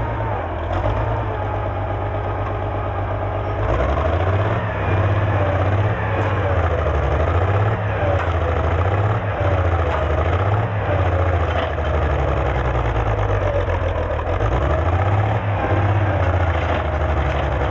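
International 460 tractor engine pulling hard on a chain to uproot a bush. Its note steadies at first, then from about four seconds in repeatedly rises and sags as it labours under the load.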